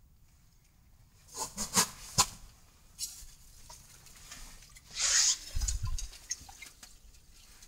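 Handling noise: a few sharp knocks and clicks, then a brief rustling scrape and a low thump as the phone is moved.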